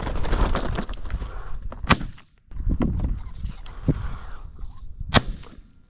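Two shotgun shots, about three seconds apart, with steady rustling noise between them.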